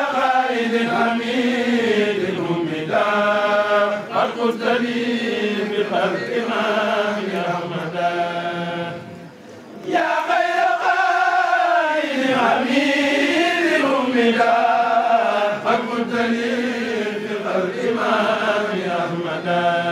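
A kourel, a group of men chanting a Mouride khassida (Islamic devotional poem) together in Arabic, sung without instruments. There is a short pause for breath near the middle, then the chant resumes.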